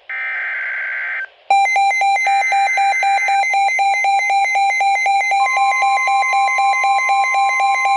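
Emergency Alert System weather-radio alert opening. It starts with a short burst of screechy SAME data tones, and after a brief gap a rapid single-pitch alarm beep at about four to five beeps a second begins. A second data burst plays over the beeps, and a steady alert tone joins about five seconds in.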